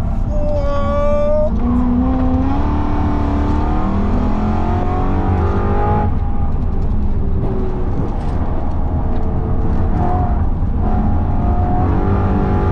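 BMW E92 M3's V8 engine heard from inside the cabin under hard track driving, its pitch rising and dropping back several times as it revs and lifts or shifts, over a heavy low road and tyre rumble.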